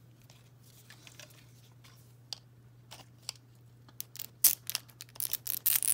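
Plastic shrink wrap on a toy ball being slit and torn open with a pointed metal tool: a few faint ticks at first, then sharp crackles and crinkling in the last two seconds, over a low steady hum.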